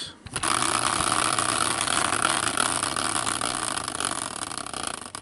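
Large caster wheel on a metal swivel bracket, spun by hand, whirring on its bearing and slowly winding down. The whir starts about half a second in, fades gradually, and breaks into separate clicks near the end as the wheel slows.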